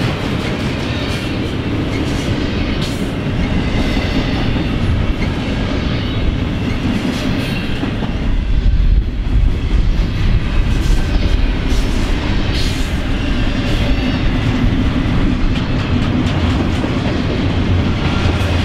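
Union Pacific double-stack intermodal train's well cars rolling past at speed: a steady rumble of steel wheels on rail with scattered clicks and clanks.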